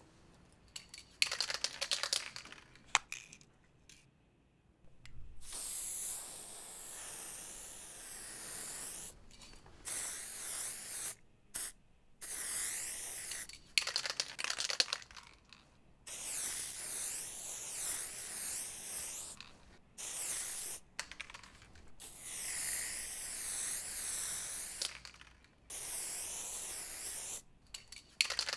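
Aerosol spray can: some rattling clicks early on, then repeated hissing sprays of one to three seconds each with short pauses between, the hiss wavering up and down in pitch as the nozzle moves.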